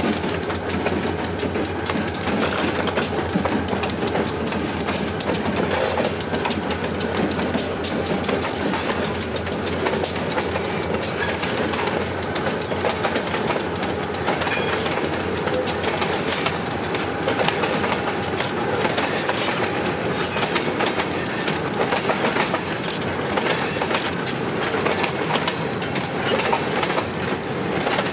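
A freight train of empty boxcars rolling past, its steel wheels clicking steadily over the rail joints, with a faint thin wheel squeal throughout.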